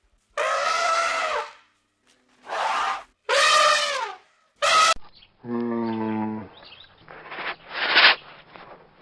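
A string of animal calls cut together from different clips: four short pitched calls, then a lower, drawn-out call about five and a half seconds in, then noisier calls near the end.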